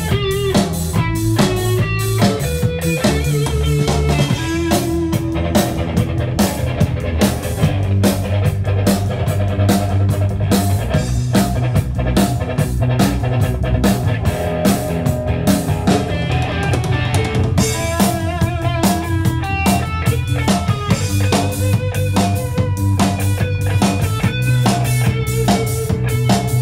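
A live rock band playing an instrumental number through amplifiers: drum kit, electric bass and electric guitar together, with the bass line strong underneath. The drums drop out briefly a little past halfway, then come back in.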